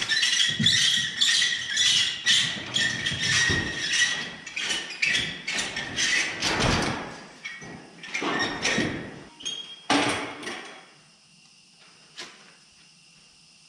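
Roll-over tarp on a grain end-dump trailer being cranked shut by hand: a quick, uneven run of rattles and clanks from the crank and tarp bows, with a thin squeal under the first few seconds, stopping about eleven seconds in.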